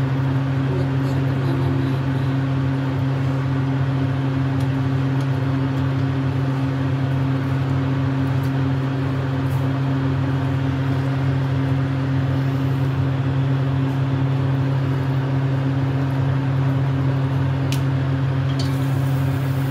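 Steady electric fan hum of a kitchen cooking appliance running, with a low drone. A couple of light clicks near the end.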